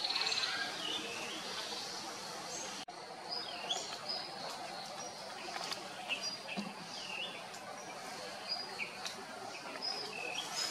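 Small birds chirping in the surrounding trees: many short, repeated chirps over a steady background hiss.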